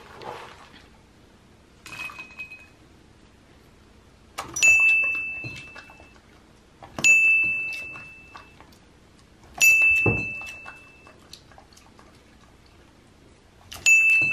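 A bright bell-like ding sounds four times, a few seconds apart, each ringing out and fading over about a second, with a fainter ding about two seconds in. The dings keep time with the on-screen catch counter, so each one marks the husky catching a piece of popcorn.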